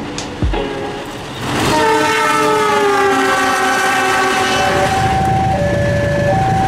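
Diesel locomotive horn sounding a long chord that sinks slowly in pitch as the train passes. It then gives way to two notes alternating back and forth over the steady rumble of the train.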